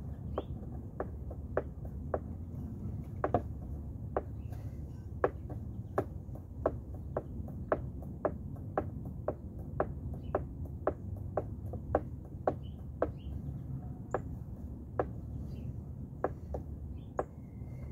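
Handling noise: cloth rubbing over the microphone as a low rumble, with a long run of sharp, irregular clicks, about two or three a second.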